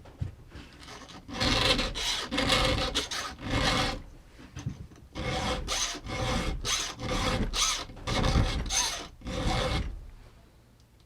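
A round file rasping by hand across chainsaw cutters in quick back-and-forth strokes, sharpening the chain. The strokes come in two runs, with a pause of about a second between them.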